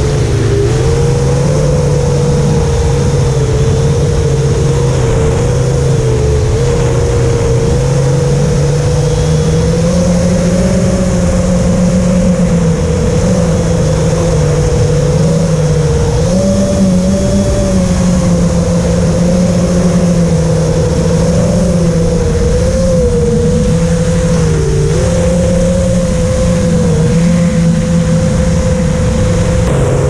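Small remote-control aircraft's electric motor and propeller heard from on board, a steady hum whose pitch wavers up and down with the throttle, over wind rushing on the microphone.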